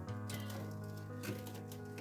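Background music: held instrumental notes over a steady bass line, changing chord every second or so.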